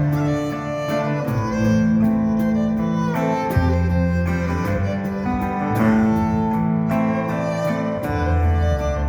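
A band playing instrumental music: held melody notes over a moving bass line, with regular plucked or struck accents.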